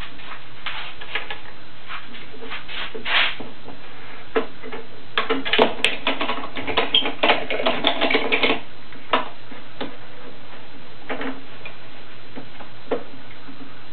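Metal bar clamps on a glued wooden frame clicking and clacking as they are adjusted and screwed tight to close the joints and squeeze out the glue. There are scattered single clicks, a busy run of rattling clacks in the middle, and a few more clicks near the end.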